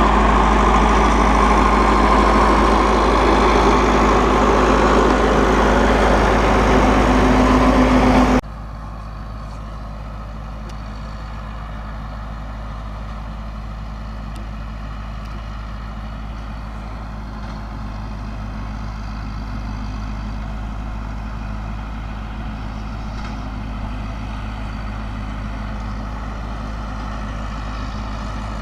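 Massey Ferguson 375 tractor's diesel engine running steadily with the round baler working behind it. About eight seconds in, the sound drops suddenly to a quieter, steadier engine hum.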